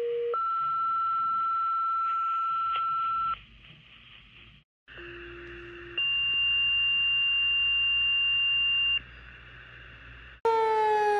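Two-tone sequential fire dispatch paging tones heard over a radio scanner with background hiss: a short low tone then a long higher tone, played twice with a pause between. Near the end the fire company's house siren comes on loudly, its pitch sagging and rising again.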